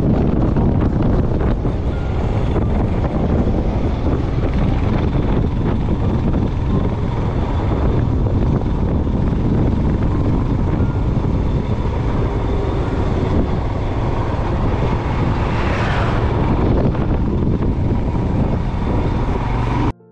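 Wind rushing over the microphone of a motorcycle ridden at road speed, with the engine running underneath. A brief falling whoosh sounds about three-quarters of the way through, and the sound cuts out for a moment at the very end.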